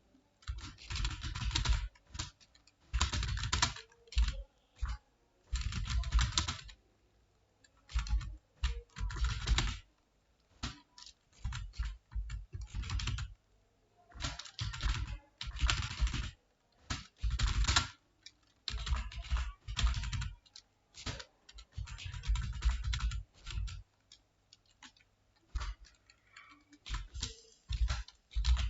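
Typing on a computer keyboard: quick runs of keystrokes broken by short pauses every second or two.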